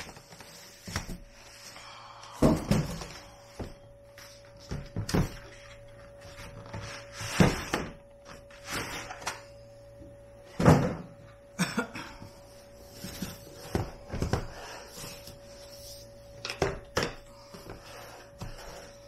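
Hard plastic instrument carrying case being pulled from a cardboard box and set down on a table, giving a series of irregular knocks and thumps with handling noise between them; the loudest thump comes about ten and a half seconds in.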